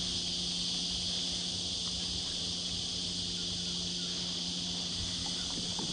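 Steady, high, unbroken droning of a cicada chorus, with a faint low hum underneath and a few small clicks near the end.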